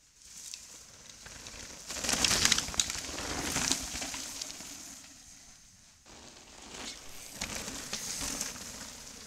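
Downhill mountain bikes passing on a dirt trail, their tyres crunching and rustling through dry fallen leaves with scattered clicks and rattles. Two passes, each swelling and then fading, the first about two seconds in and the second near the end.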